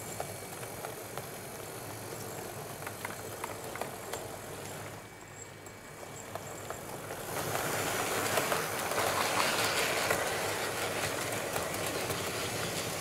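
Model train running along layout track: a steady running noise with small clicks from the wheels passing over rail joints and points. It gets louder about seven seconds in.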